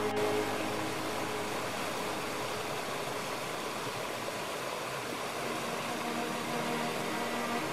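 Steady rush of water falling over a small rocky cascade. Soft music fades out just at the start, and faint music notes come back near the end.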